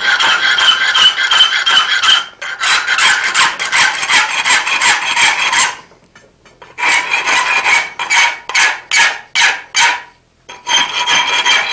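Half-round file rasping back and forth across a forged iron handle clamped in a vise, smoothing lumps and defining the finials. Runs of quick strokes, about three a second later on, broken by short pauses about six and ten seconds in.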